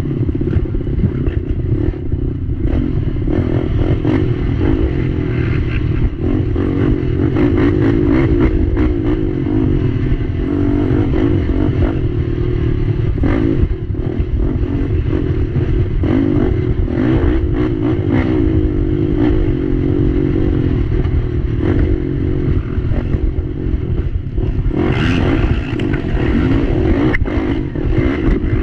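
Race quad's engine running hard under throttle, heard from on board the machine. Frequent knocks and clatter come through as it crosses a rough dirt trail.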